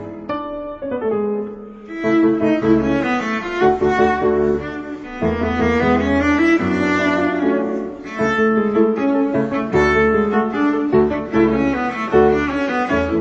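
Instrumental background music: a melody of held notes over a bass line, dipping in level briefly about a second in.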